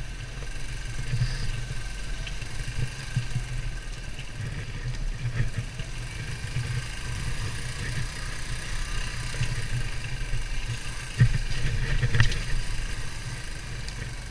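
Beta Alp 200 dirt bike's single-cylinder four-stroke engine running steadily at low speed, with two louder knocks late on.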